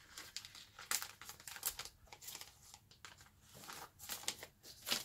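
Clear plastic binder pockets crinkling and rustling as a trading card is worked into a sleeve, in a run of irregular, sharp crackles.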